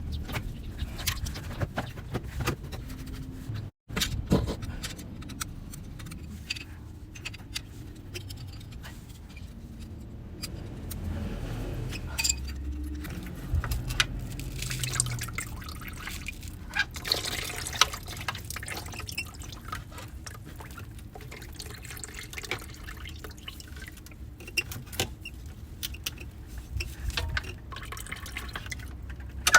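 Liquid dripping and pouring, with scattered small clicks and knocks.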